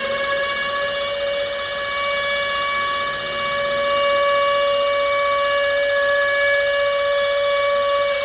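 Civil defense warning siren sounding one long, steady tone at full pitch, warning of inbound nuclear missiles.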